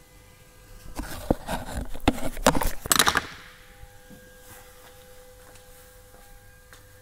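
Rustling and knocking handling noise, irregular and loud for about two seconds from about a second in, as the camera is picked up and carried; afterwards only a faint steady hum.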